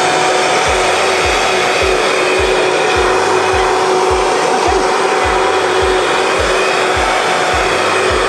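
High-speed countertop blender running steadily as it purées courgette and basil into an emulsion, with a low thump about twice a second from about half a second in.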